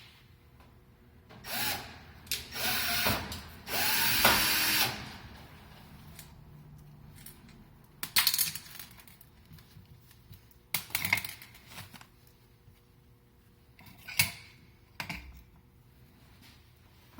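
Cordless drill/driver driving screws in three short runs as the electric range's back covers are screwed back on, then scattered clicks and knocks of metal panels and parts being handled.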